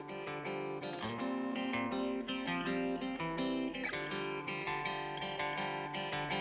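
Background music led by a plucked guitar, its notes picked in a quick steady pattern.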